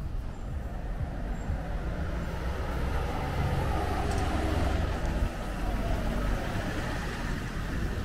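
Street traffic rumble, with a motor vehicle passing close by: it grows louder from about halfway through and its engine note falls in pitch as it goes past.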